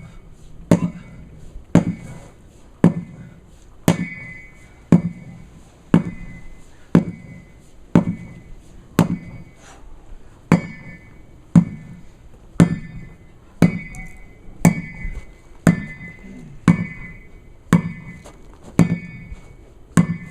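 Sledgehammer striking a tire over and over, about one blow a second, each a sharp thud with a short ring.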